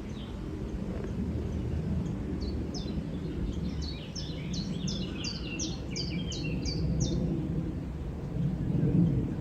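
A small songbird sings a run of about a dozen quick, repeated high notes, each sliding downward, lasting a few seconds. Under it runs a steady low rumble of wind on the microphone.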